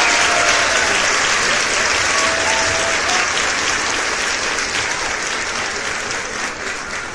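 Crowd applause, a dense patter of clapping that gradually fades out toward the end.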